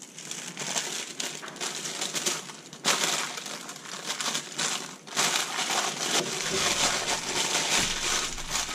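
Thin plastic bag crinkling and rustling as gloved hands wrap it around a filled wooden soap mold, a continuous crackle that grows louder from about three seconds in.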